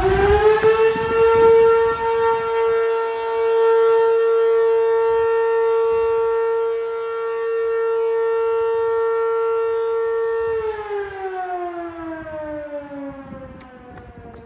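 Mechanical fire siren winding up to a steady high pitch, holding it for about ten seconds, then winding down and fading near the end.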